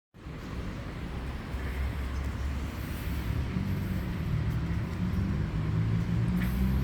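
Low engine rumble of a motor vehicle, growing louder about halfway through, over a steady hiss.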